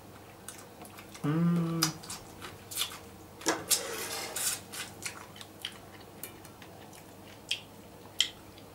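Eating fried king prawns by hand: sucking and slurping the juice from the prawn heads, with lip smacks and small clicks of shell. A short hummed "mmm" comes about a second in, and the longest slurp comes around the middle.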